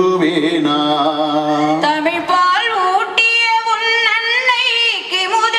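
A man sings into a microphone for about the first two seconds, then a woman takes over and sings long held, wavering notes, in a Tamil folk song.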